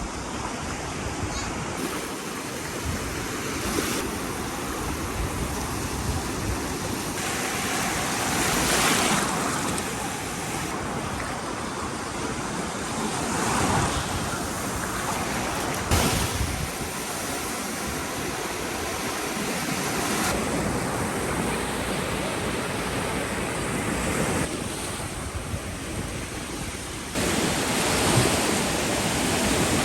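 Sea surf washing onto a beach: a continuous rush of water that swells every few seconds as waves break, shifting abruptly in tone several times.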